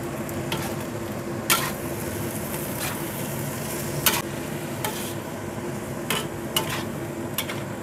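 A metal spatula scraping and clinking against a wok, roughly once a second, as pasta, spinach and vegetables are stir-fried, over a steady sizzle and a low hum.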